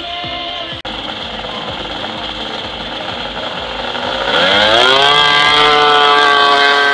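Yamaha snowmobile engine opening up to full throttle from the start line about four seconds in, its pitch rising quickly and then holding high as the sled accelerates away.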